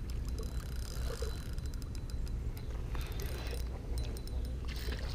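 Spinning fishing reel handled, giving quick light mechanical ticking and clicking in two short runs, over a steady low rumble.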